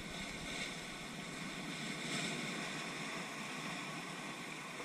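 Ocean surf surging and washing through a narrow channel between rocks, a steady rushing hiss of water that swells about half a second in and again around two seconds in.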